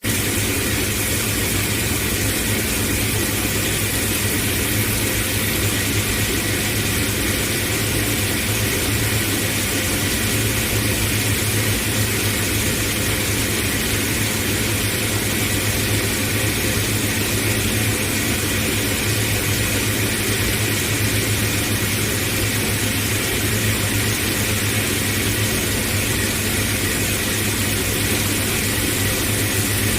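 Brush peeling and washing machine for carrots running steadily: a constant low motor hum with an even hiss over it.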